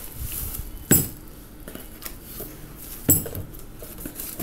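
Two sharp knocks, about two seconds apart, as jars of peanut butter are taken from a cardboard box and set down, with rustling of bubble wrap and cardboard in between.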